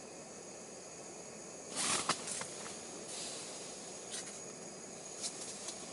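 Brief rustle about two seconds in and a few light clicks, over a steady hiss: an ice angler handling his gear and clothing in the fishing tent.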